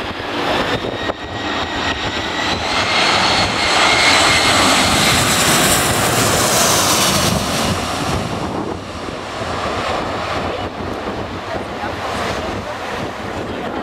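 Airbus A340-300's four CFM56-5C turbofans on final approach, passing low overhead: a jet whine and rush that grows to its loudest about four to seven seconds in, then fades as the airliner moves away over the runway.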